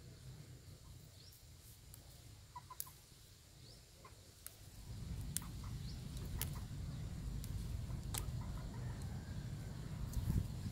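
Water mimosa stems being snapped and stripped by hand, a scatter of sharp crisp clicks, with faint bird calls in the background. From about five seconds in, a low rumble rises beneath it and becomes the loudest sound.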